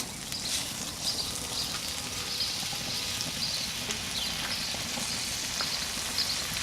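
Butter melting and sizzling on a hot cast iron griddle, with a steady hiss and small crackles that grow slightly louder.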